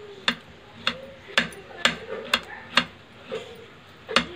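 Kitchen knife slicing a peeled banana into rounds on a plate, the blade clicking sharply against the plate with each cut. The clicks come about twice a second, seven in all, with a short pause before the last one near the end.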